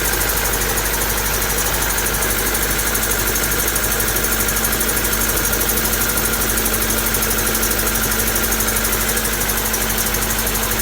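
Honda D16 'Mini-Me' four-cylinder engine (D16Y7 block with a D16Y8 head) idling roughly, with a fast, even knock. The owner takes the knock for a spun bearing after too much nitrous.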